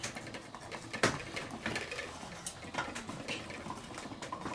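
Wooden twirling whisk turned inside an ostrich egg through a drilled hole, knocking and scraping against the inside of the shell with irregular clicks as it beats the yolk and white together.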